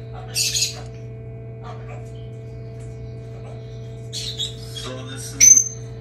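A newly hatched Moluccan cockatoo chick giving a few short, high squeaks, the loudest near the end, over the steady hum of the egg incubator.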